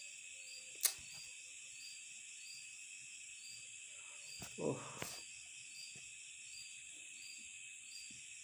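Crickets chirring steadily in the background, with an even pulsing about twice a second. There is a sharp click about a second in, a short low murmur of a voice around four and a half seconds, and another click just after it.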